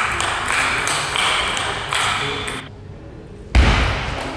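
Table tennis rally: the ball clicking off bats and table at an even pace, echoing in a large hall, with a loud low thump about three and a half seconds in.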